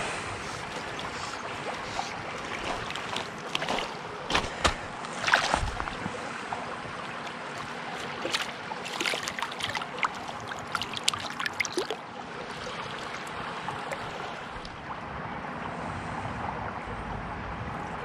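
Water splashing in the shallows as a hooked brook trout is brought in and landed by hand: irregular splashes and knocks for about the first twelve seconds, then only a steady hiss.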